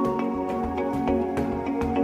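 Background music: a soft new-age instrumental track with sustained chords and a light, regular beat.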